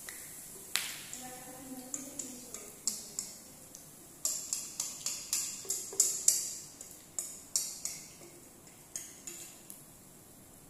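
A metal spoon clinking and scraping against a stainless steel mixing bowl as batter is scraped out into a frying pan: a run of sharp taps, thickest a few seconds in, over a faint sizzle of batter in hot oil.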